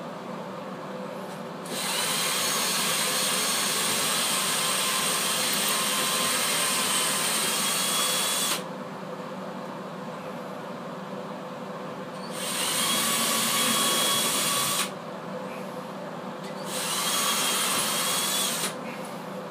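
Power drill running in three bursts: a long run of about six seconds, then two shorter runs of two to three seconds, each starting and stopping abruptly with a steady whine.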